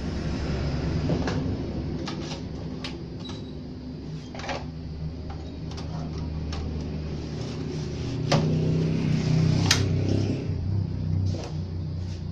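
Clicks and knocks from a CRT television's circuit board and plastic cabinet parts being handled, scattered through, with two louder knocks about eight and ten seconds in, over a steady low hum.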